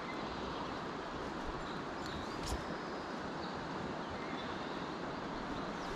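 Steady rush of river current flowing past the wading angler, with one small click about two and a half seconds in.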